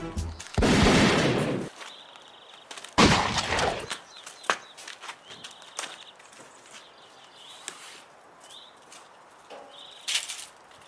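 Three gunshots, each a sudden loud bang with a tail of about a second: two about two and a half seconds apart near the start, and a shorter, quieter one near the end. Birds chirp faintly between the shots.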